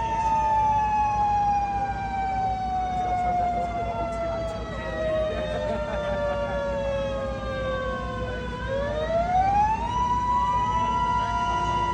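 A mini mechanical warning siren sounding with several pitches together. Its tone slides slowly down as the rotor coasts, then about three-quarters of the way through it rises quickly back to full pitch and holds steady.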